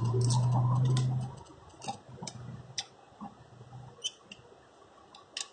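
A steady low hum that stops about a second in, then a scattering of light, sharp clicks and taps from small phone parts and tools being handled as the display's flex strip is fitted into the phone.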